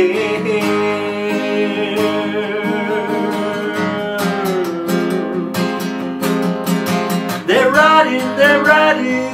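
Acoustic guitar strummed steadily in chords, with a man singing over it: a held note at the start, then a sung phrase that rises in pitch about seven and a half seconds in.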